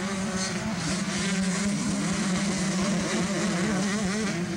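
Several 125cc two-stroke motocross bikes racing, their engine notes rising and falling as the riders rev through the course, over a steady low hum.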